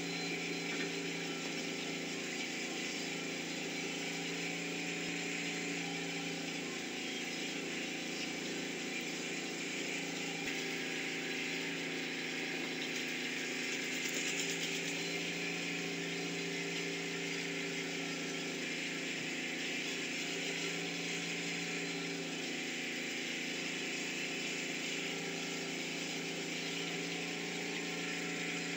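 A steady mechanical hum, like a motor running, with an even hiss over it that holds unchanged throughout.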